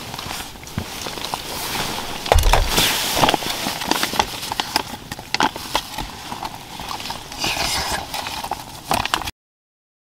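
Crinkling and rustling of a plastic food pouch being handled, mixed with the swish of nylon clothing and sleeping bag, in irregular crackly bursts that cut off suddenly near the end.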